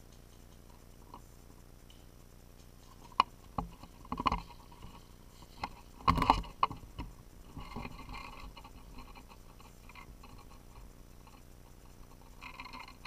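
Crunching and rustling of dry leaves and brush as a player moves and drops low, with several sharp knocks from handled gear, the loudest cluster about halfway through, then softer scuffing.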